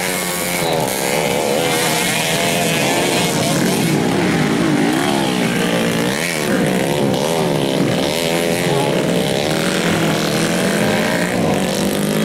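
Several dirt-bike engines revving up and down together, their pitches rising and falling and overlapping as the bikes race and struggle through mud.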